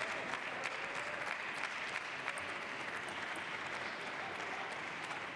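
Crowd applauding: a steady wash of clapping with scattered sharper individual claps.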